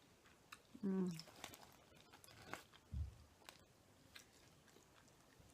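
Close-up chewing and biting of crunchy fried chicken, with small crisp crunches. A short hummed voice sound comes about a second in, and a low thump about three seconds in.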